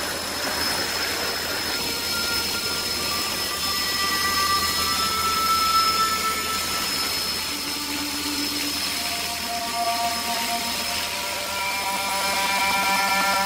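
Steady engine and turbine noise of an aircraft flying over a lava field, a constant hum with a high whine over it.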